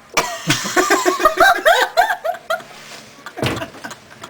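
A girl giggling: a run of quick laughing pulses for about two seconds. A short, sharp vocal burst follows about three and a half seconds in.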